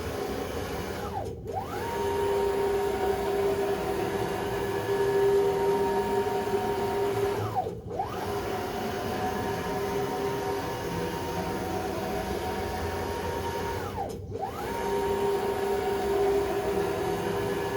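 5 Prime 2642-20 CNC router's axis drive motors and ball screws whining steadily as the machine travels. Three times, about every six and a half seconds, the whine glides down to a brief stop and straight back up as an axis reverses direction.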